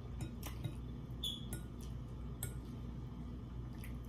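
A metal fork clicking and scraping lightly against a glass bowl as ramen noodles are stirred and lifted, with chewing sounds, over a steady low hum.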